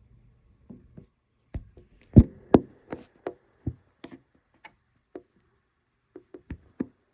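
A run of irregular sharp clicks and knocks, about fifteen in all, with the loudest two close together a little after two seconds in.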